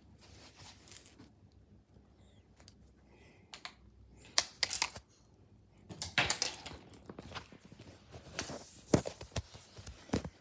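Scattered light clicks and clatters of a small plastic pacifier being batted and skittering across the floor, sparse at first and coming in clusters from about four seconds in.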